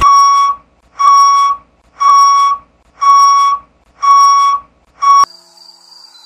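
An electronic beeper sounding a steady, loud, high beep about once a second, six times, the last one cut off short.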